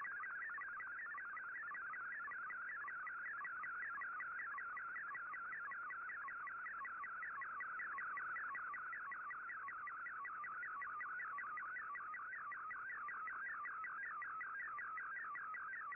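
Shortwave digital-mode picture transmission heard through an Icom IC-R8600 receiver: Fldigi's MFSK image signal, a fast-warbling, chirping tone that sweeps up and down without a break, steady in level, as a colour picture is sent line by line.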